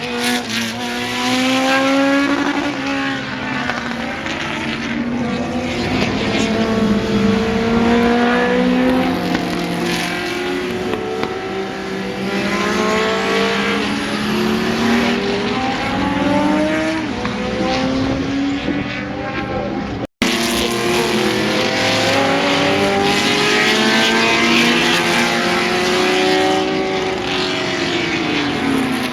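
Several racing cars' engines at close range, their pitch rising and falling over and over as they accelerate and change gear. The sound cuts out for a split second about two-thirds of the way through.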